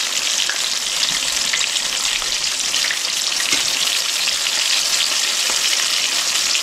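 Cornmeal-battered crappie chunks frying in hot grease: a steady sizzle with many fine crackling pops.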